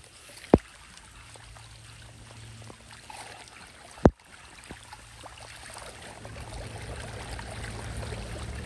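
Shallow floodwater trickling and sloshing around a hand clearing debris from a blocked street drain, with a low rushing that builds over the second half as the drain opens and a whirlpool starts over it. Two sharp knocks cut through, about half a second in and about four seconds in.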